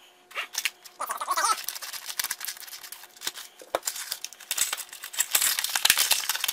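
Stiff clear plastic packaging crinkling and crackling as it is cut and pulled open by hand, with many small irregular clicks and a short squeak about a second in.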